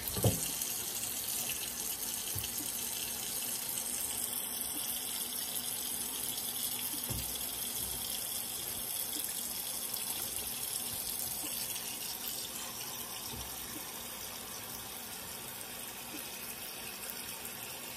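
Kitchen faucet running a steady stream of water into a pot of cabbage sitting in a stainless steel sink, filling the pot; it eases slightly in the last few seconds.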